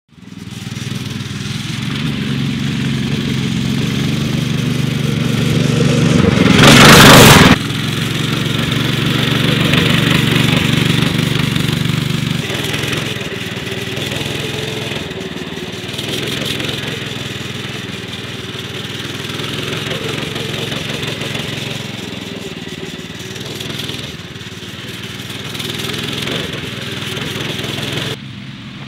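Small single-cylinder 200cc go-kart engine running under way, a steady drone that later wavers and fades as the kart moves about. A loud rushing burst lasting about a second, some seven seconds in, is the loudest moment.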